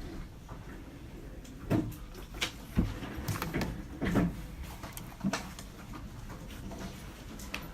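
Quiet university library room tone with a handful of light knocks and clacks between about two and five and a half seconds in.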